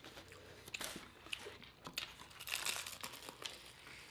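Crispy fried chicken being torn apart and handled, with irregular crackling and crinkling and a few sharper crunches.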